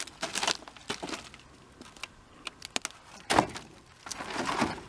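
Wooden sawmill boards knocking and clattering as they are handled and loaded, with one loud knock about three and a half seconds in and a scraping sound near the end.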